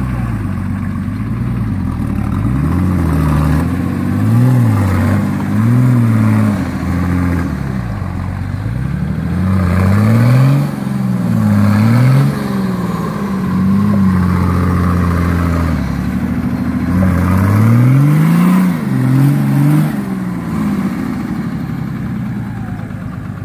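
Off-road vehicle's engine revving up and down over and over, its pitch rising and falling every couple of seconds.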